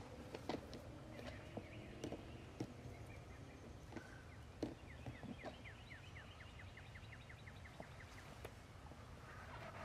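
Faint scattered knocks as a wild turkey gobbler strikes and mounts a turkey decoy. A songbird trill of quick falling notes runs from about five to eight seconds in.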